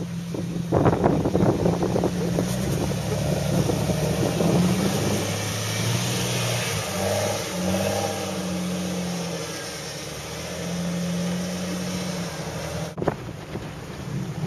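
Jeep Wrangler Rubicon engine revving up and down at low speed as the 4x4 crawls over rock ledges, with wind noise on the microphone.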